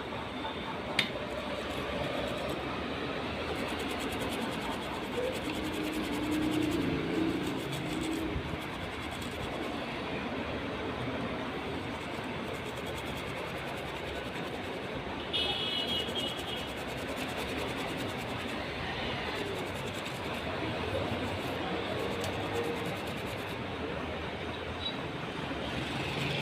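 Steady noisy background, like room or traffic noise, with one sharp click about a second in.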